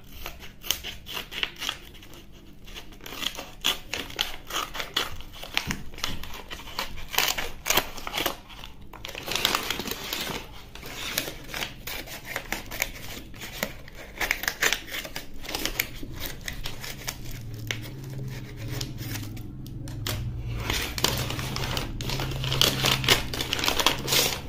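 Paper shipping envelope crinkling and rustling as it is handled, with scissors snipping through the paper. Irregular clicky crackles, most dense from about nine seconds on, as the envelope is cut open and a cardboard box is slid out.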